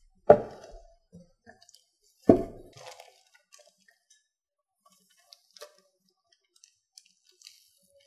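Two heavy thuds about two seconds apart as the metal-cased KVM switch in its plastic bag and its cardboard box are handled and set down on a tabletop, followed by faint plastic crinkles and small clicks.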